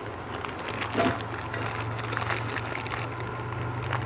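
A small plastic bag of seals crinkling and crackling as it is handled and turned over in the hands, with a steady low hum underneath.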